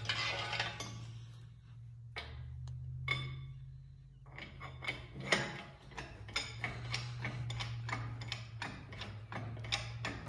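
An engine hoist and its rusty lifting chains clicking and clinking as they take up the weight of a pickup truck bed. The clicks and knocks come irregularly, a few a second from about four seconds in, over a steady low hum.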